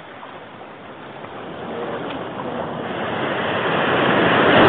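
Surf at the shoreline: a wave rolling in and breaking, its rushing hiss growing steadily louder and peaking near the end as it washes up the beach.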